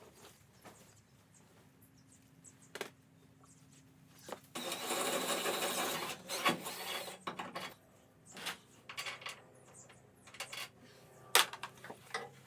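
A power drill runs for just under two seconds, amid scattered metallic clicks and knocks of tools and hardware. A sharp knock near the end is the loudest sound.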